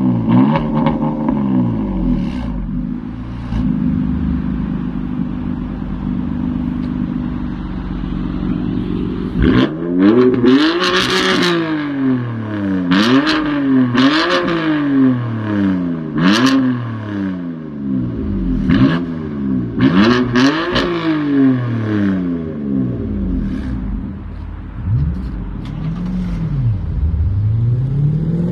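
BMW M4's twin-turbo straight-six idling steadily, then revved in place again and again, each rev rising and falling, with sharp cracks from the exhaust around the peaks.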